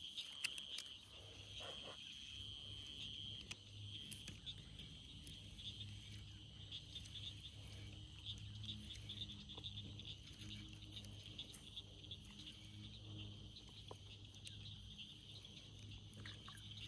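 Faint outdoor ambience: a steady high-pitched chirring, dotted with many small chirps of wild creatures, over a low hum.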